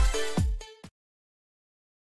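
Electronic dance music with a steady kick beat about twice a second, fading and cutting off just under a second in, leaving silence.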